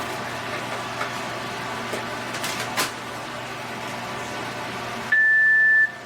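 A few light clicks of cables and plugs being handled, then a single steady electronic beep just under a second long from the call recorder or phone base as it is powered up.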